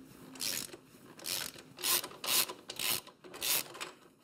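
Socket ratchet with a Torx T55 bit clicking in repeated quick strokes, about two a second, as it spins out the lower shock bolt.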